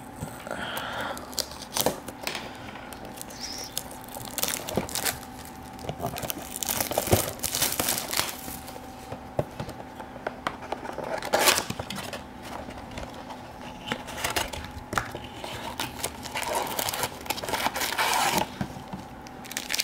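Plastic shrink-wrap crinkling and tearing as it is pulled off a cardboard trading-card box, in irregular crackly bursts, then the box's cardboard flap being opened near the end.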